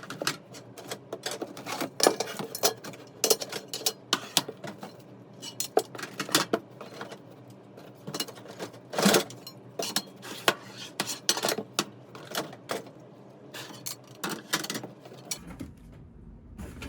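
Wheelock E90 fire alarm speaker strobes being taken out of a box and handled: irregular clicking and knocking of hard housings against each other and the box, with louder knocks about two seconds in and again about nine seconds in.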